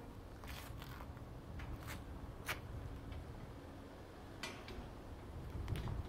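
Scattered faint metallic clicks and taps as a wrought-iron church gate is unlatched and swung open, with a faint low hum underneath.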